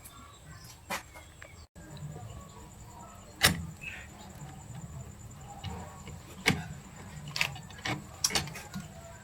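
A handful of sharp knocks and clicks, unevenly spaced, over a low steady hum. The loudest comes about three and a half seconds in, and a quick cluster follows near the end.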